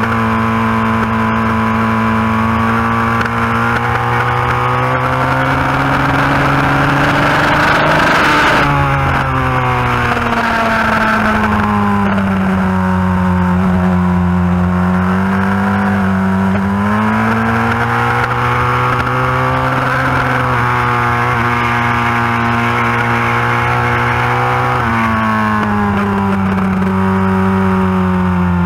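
Yamaha FZR1000 inline-four engine running hard at high revs, heard from onboard the bike at speed with a steady rush of wind. Its pitch holds, drops sharply about eight seconds in and slides lower, climbs again past the middle, then jumps briefly and falls away near the end as the bike is worked through the corners.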